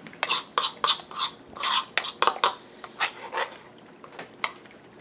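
Metal spoon scraping around the inside of a bowl: about nine quick scrapes over the first three and a half seconds, then a couple of lighter taps.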